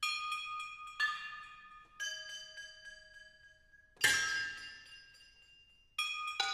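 Resonant found metal objects struck one at a time in a percussion solo, each strike leaving several bright, steady ringing tones that die away. Strikes fall about once a second with a gap around three seconds in; the strike about four seconds in is the loudest, and two come close together near the end.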